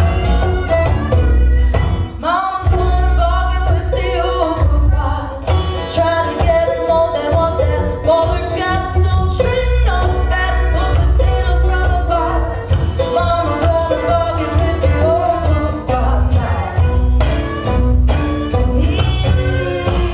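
Live folk band playing: fiddle, banjo, acoustic guitar and drums, with a woman singing lead from about two seconds in over a steady beat.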